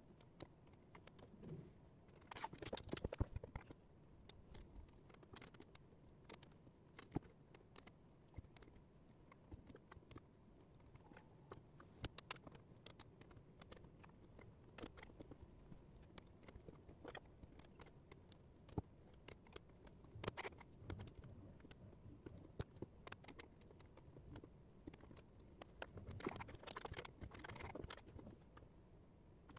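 Thin wooden jigsaw puzzle pieces clicking and tapping faintly on a tabletop as they are picked up and fitted, in scattered light taps. There are two denser bursts of clatter, about two and a half seconds in and again near the end, as hands sift through the loose pieces.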